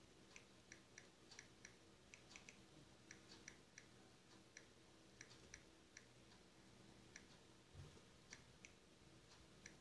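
Faint, irregular clicks of typing on a smartphone touchscreen, about two or three taps a second, over near-silent room tone.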